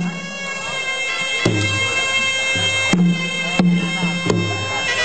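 Traditional Khmer boxing music: a sralai reed oboe playing a continuous nasal melody over skor hand drums. The drums strike every second or so, each stroke ringing low.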